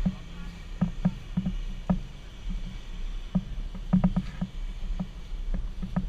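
Soft, irregular knocks and rustles, about two to three a second, from an inflatable costume and the hand-held camera pole as the wearer walks, over a steady low hum.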